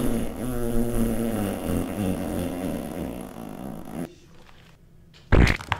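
A low, buzzy, pitched drone lasting about four seconds and cutting off suddenly, then a short, loud flatulent burst about five seconds in: a fart sound.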